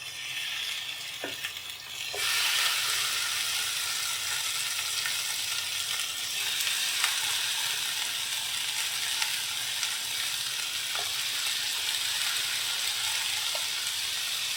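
Tomato slices sizzling in butter in a hot frying pan, the sizzle jumping up sharply about two seconds in as they go into the pan and then holding steady, with a few light ticks.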